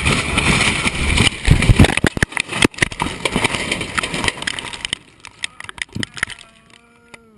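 Small aircraft in a mid-air collision: rushing air and engine noise broken by a cluster of loud bangs and crunches about one and a half to three seconds in, then scattered rattling and clattering that fades away.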